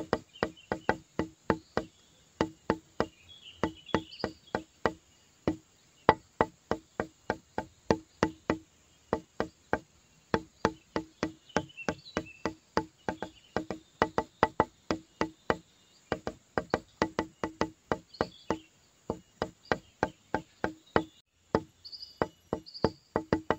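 Background music: a steady beat of quick, evenly spaced wood-block-like clicks, about four a second, with faint high chirping notes over it and a brief break near the end.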